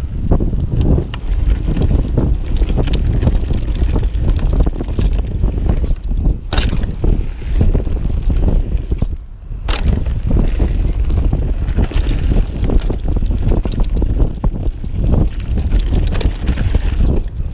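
Mountain bike descending a dirt trail: wind buffeting the microphone over tyre rumble and the rattle of the bike. Two sharp knocks come about six and a half and about ten seconds in, the second just after a brief lull.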